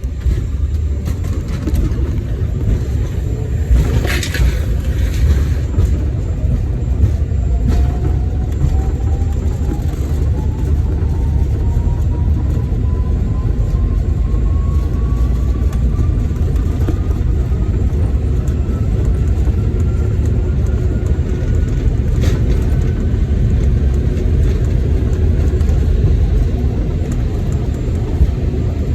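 Bombardier CRJ900 regional jet running: a steady low rumble with a faint whine that climbs slowly in pitch over about twenty seconds.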